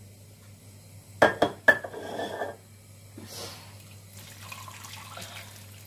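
Hot water being poured from a metal jug into a steel pot of stuffed peppers, splashing over them to top up the cooking liquid. Two sharp clinks sound about a second in, then the pour runs on in spells.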